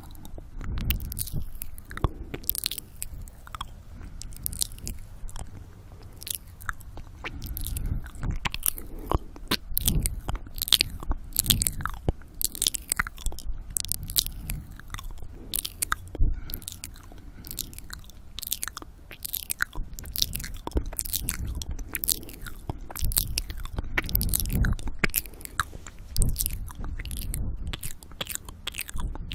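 ASMR 'ear eating' mouth sounds right at the microphone: a dense run of wet clicks and smacks from lips and tongue, with heavy breathing on the microphone that swells and fades.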